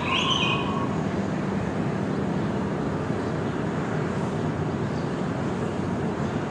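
Morning beach ambience: a steady rush of surf, with a single short bird call in the first half-second.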